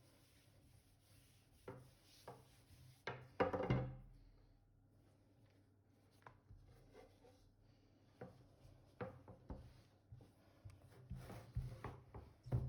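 Irregular knocks, taps and rubbing from hands and utensils working dough on a kitchen work surface, with a loud cluster of knocks a little over three seconds in and another near the end, over faint background music.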